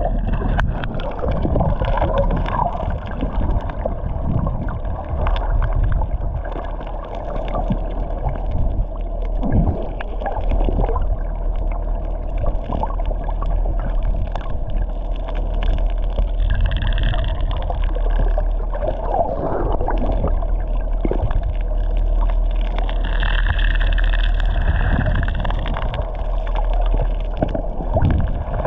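Water gurgling and sloshing over a steady low rumble, with two brief wavering tones partway through.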